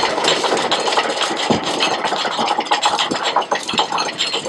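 Anchor chain rattling and clinking as it is fed down into a sailboat's anchor locker while the anchor is raised: a dense, continuous run of metal clatter.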